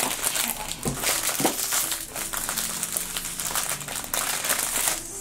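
Crinkling and rustling of a metallic foil blind-bag pouch as hands squeeze and pull at its top edge, trying to tear it open by hand.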